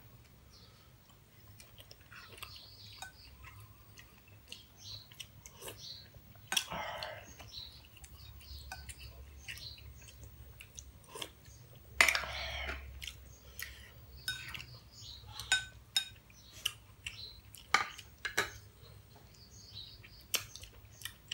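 People eating at a table: chewing on moringa pods, with spoons clinking against ceramic bowls and plates. There are many small clicks and taps, plus a couple of louder noises about a third and just over halfway through.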